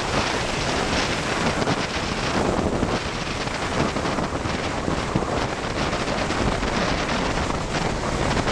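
Rushing wind buffeting the microphone of a bicycle descending a mountain road at high speed, a loud, steady roar that swells and dips slightly in gusts.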